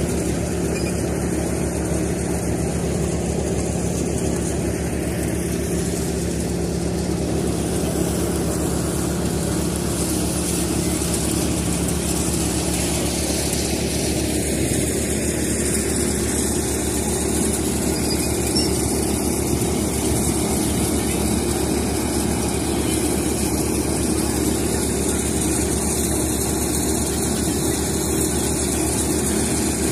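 Tractor engine running steadily. In the second half, a tractor-driven threshing machine runs as dry crop plants are pitched into it, with a slightly different steady hum.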